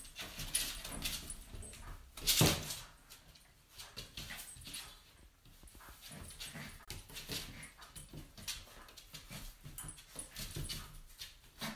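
Cairn terrier puppy making small play noises while it pushes an upturned fabric dog bed around, the bed scuffing and scraping over a tiled floor in short irregular bursts. The loudest scuff comes about two and a half seconds in.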